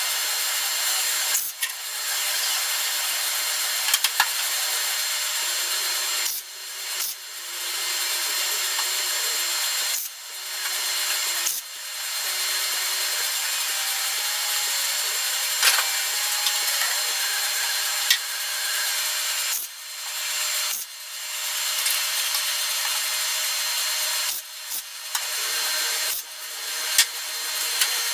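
MIG welder arc crackling steadily as a sheet-steel flange is welded in, in runs of a few seconds broken by about a dozen short pauses.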